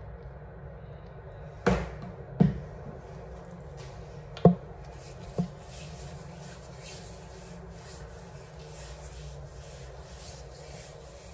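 Hands rubbing body cream into the skin of a bare leg, soft repeated strokes at about two a second through the second half, over a steady low hum. Four sharp knocks come in the first half.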